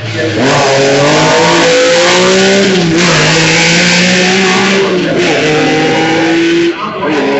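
Lancia Stratos rally car's V6 engine accelerating hard, its pitch climbing and dropping sharply at three upshifts, about three seconds in, about five seconds in and near the end. Loud.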